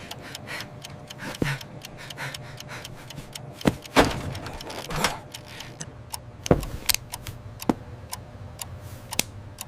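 Clock ticking: a run of quick, sharp ticks, several a second, with a few louder clicks among them, over a faint low steady hum.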